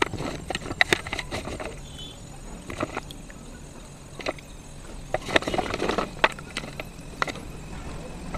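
Dry clay slate pieces being snapped and crumbled by hand, a run of sharp cracks and crisp clicks. The cracking is busiest in the first second and a half and again from about five to seven seconds in.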